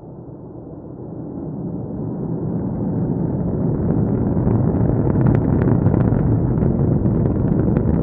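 Atlas V rocket's RD-180 first-stage engine heard at a distance during launch: a deep rumble that grows steadily louder, with crackling pops coming in about halfway through.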